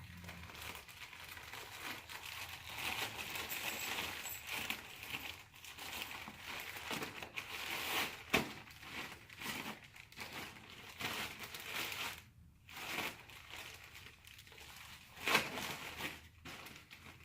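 A shipping bag being handled and opened: uneven crinkling and rustling with scattered sharp crackles.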